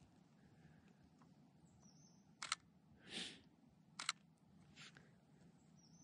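Canon EOS R camera shutter firing twice, about a second and a half apart, each shot a sharp double click. A soft rustle comes between them, over a near-silent background.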